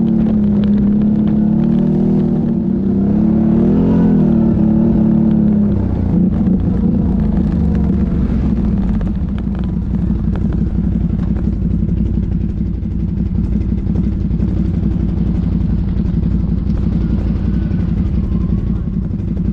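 ATV engine running, with a brief rev about four seconds in; from about six seconds in the engine sound turns rougher and noisier, as if under way over rough ground.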